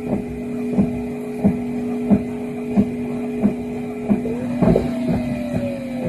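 Samsung WW90T534 washing machine turning its drum slowly with dry laundry to weigh the load, with a steady whirring that the owner suspects comes from the brushless inverter motor or its control electronics. A regular knock about every two-thirds of a second is the turning drum and laundry rubbing on the rubber lip of the door gasket, not a fault. About four seconds in, a whine jumps higher and then slowly falls.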